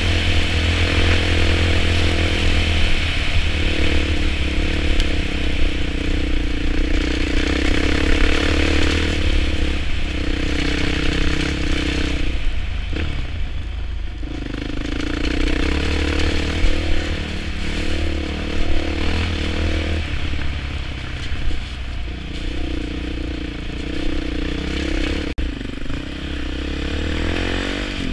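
Off-road motorcycle engine running as it is ridden along a rough dirt track, the throttle opening and closing. The engine note eases off for a couple of seconds about halfway through, then picks up again.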